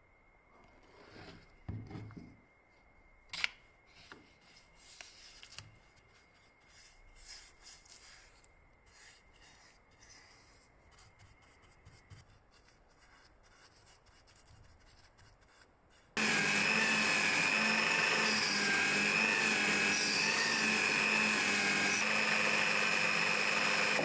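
Quiet handling and soft brush strokes of stain on a wooden handle piece. About two-thirds of the way in, a power tool starts abruptly and runs loud and steady, with a wavering pitch.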